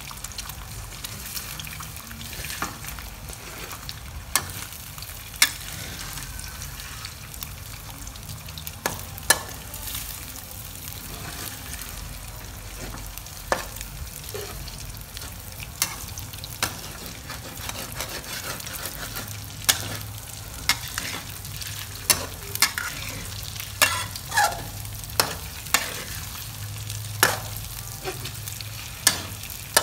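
Duck eggs sizzling steadily in hot oil in a steel wok, stirred with a metal spatula. Sharp clinks and scrapes of the spatula against the wok come more often in the second half.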